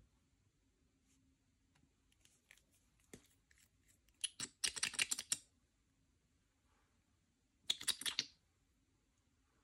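Slime being worked by hand, giving sticky clicks and pops: two spells of rapid crackling, about four seconds in and again near eight seconds, with a few single clicks between.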